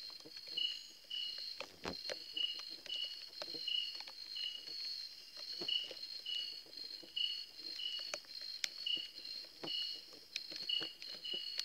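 Night insects calling: a steady high trill with a second insect chirping about twice a second beneath it, and scattered short clicks and rustles.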